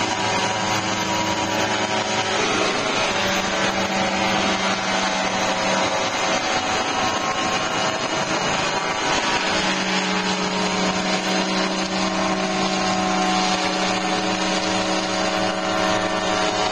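Engine and rotors of a large radio-controlled crop-spraying helicopter running steadily as it flies over the field, a constant mechanical drone whose pitch shifts slightly about ten seconds in.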